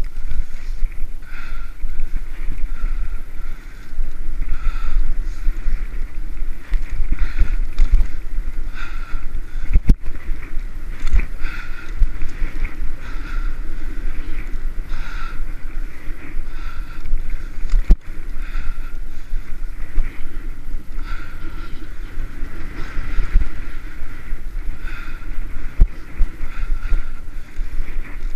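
Wind buffeting the camera microphone on a moving hybrid bicycle, with steady low rumble from the tyres on the paved trail. A fainter higher pulse repeats about once a second.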